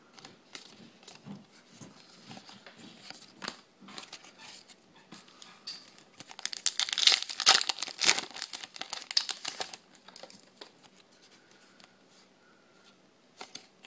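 Foil Yu-Gi-Oh booster pack wrapper crinkling and being torn open, loudest from about six to ten seconds in. Before and after come softer scattered clicks and rustles of cards being flipped through.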